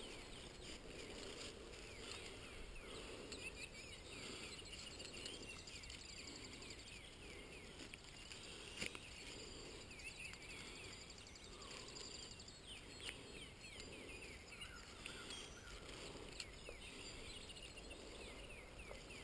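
Faint open-field ambience with small high chirps scattered throughout, and a couple of short light clicks, the clearest about nine and thirteen seconds in, while conifer branches are handled and hooked with plastic tree trainers.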